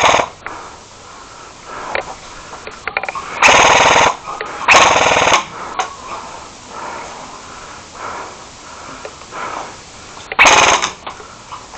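Airsoft gun firing short full-auto bursts, each a very fast rattle lasting well under a second: three bursts, two close together a few seconds in and one near the end, with scattered faint clicks between them.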